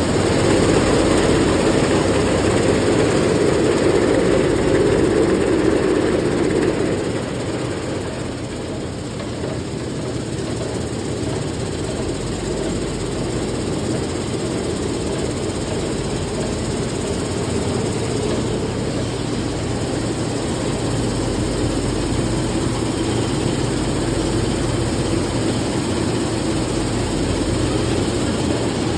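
Oat peeling and screening machinery running steadily: a vibrating sieve driven by an electric vibration motor shakes oats across wire-mesh screens, under a dense machine hum. It is a little louder for the first six or seven seconds, then settles a touch lower.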